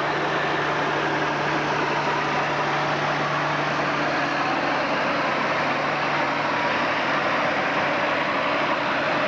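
Engine running steadily, a continuous even noise with a low hum that does not change.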